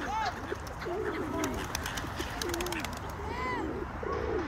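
Feral pigeons cooing repeatedly in low, wavering phrases. Two higher arched calls sound over them, and a quick run of sharp clicks comes around the middle.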